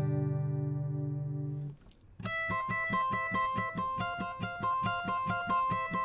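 Steel-string acoustic guitar: a strummed chord rings out and fades, then after a brief break a quick fingerpicked arpeggio pattern begins and carries on.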